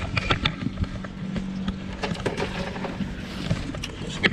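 A boat motor hums steadily, stopping about three and a half seconds in. Over it come scattered clicks and knocks of fishing gear being handled on the aluminium boat.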